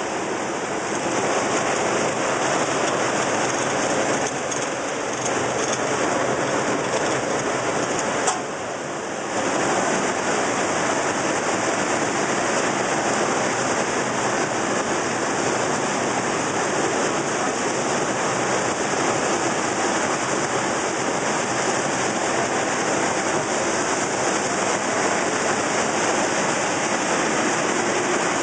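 Steady, dense noise of a puffed snack production line's machinery running, an even rush with no clear rhythm or tone, briefly dipping about eight seconds in.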